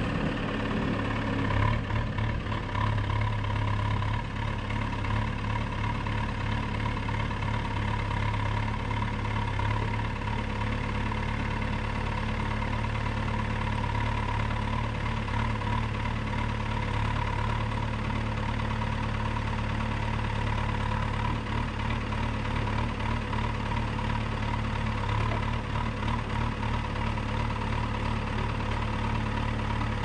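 Loadall telehandler's diesel engine running steadily at low revs, with a steady higher whine over its hum.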